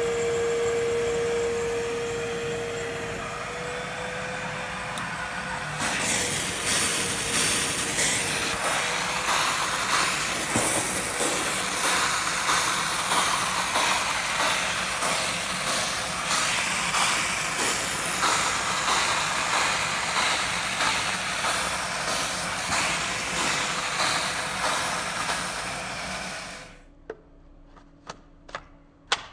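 Blue Evolution S+ steam cleaner with vacuum running. It starts as a steady hum with one clear tone. About six seconds in, a loud, uneven rush of steam hissing and vacuum suction begins as the extraction nozzle works upholstery, and it cuts off suddenly near the end. A few sharp clicks follow as a nozzle is fitted to the handle.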